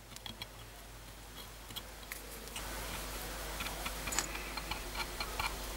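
Light clicks and small scrapes of a thin stick dabbing and spreading paste on a folding knife's metal handle liner, over a faint steady background that grows louder about halfway through.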